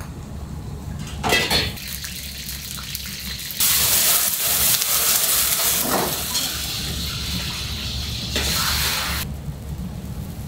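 Ramen-shop kitchen work: a loud hissing rush starts about three and a half seconds in and lasts a couple of seconds. There are shorter rushes about a second in and near the end, over a steady low hum.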